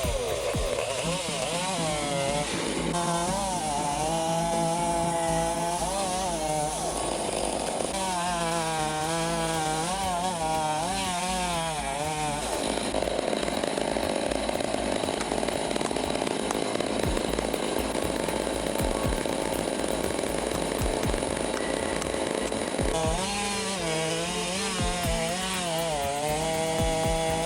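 Chainsaw cutting timber, its engine pitch rising and falling under load in long runs of sawing, with a noisier stretch in the middle.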